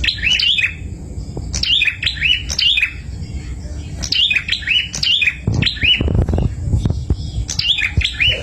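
Prenjak songbird calling in quick runs of sharp chirps, two or three at a time, repeating throughout. A low rumble rises under the calls about two-thirds of the way through.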